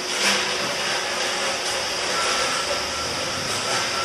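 Steady shop-floor machinery noise, a loud even hiss with a hum beneath it, with a faint high steady tone coming and going from about halfway.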